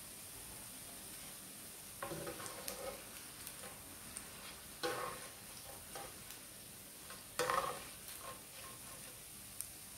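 Small anchovies frying in oil in a grill pan, with a faint steady sizzle, while a spatula stirs and scrapes them across the pan three times, about two, five and seven and a half seconds in; the last stroke is the loudest.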